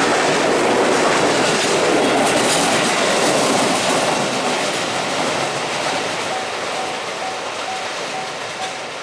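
Electric commuter train running over a level crossing, its wheels clattering on the rail joints, the noise easing a little toward the end. From about six seconds in, the level-crossing warning bell can be heard ringing at about two strikes a second.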